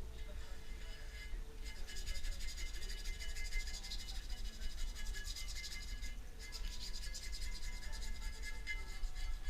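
Rapid rubbing or scrubbing, as of a brush or abrasive worked back and forth over a part. It comes in two long spells: the first begins about two seconds in and breaks off briefly around six seconds, then it resumes.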